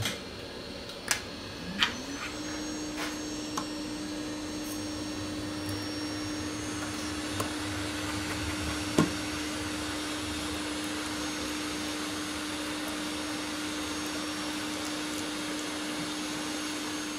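A small electric motor spins up about two seconds in, its hum rising in pitch, then runs steadily with a whoosh of moving air. A few sharp clicks sound in the first two seconds, and one more about nine seconds in.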